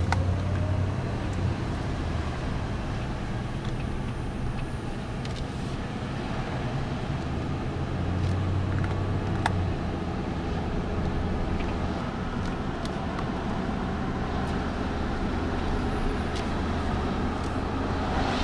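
Steady engine hum and road noise inside a moving car's cabin, with a single small click about halfway through.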